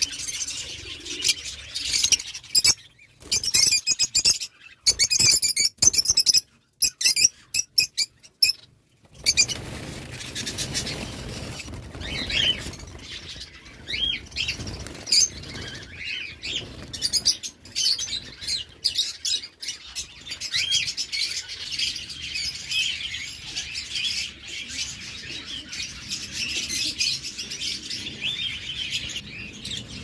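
Many small caged birds, lovebirds and finches, chirping at once, a dense twittering of overlapping high calls. For roughly the first third the sound is chopped into short pieces with abrupt silent gaps; after that the chirping runs on without a break.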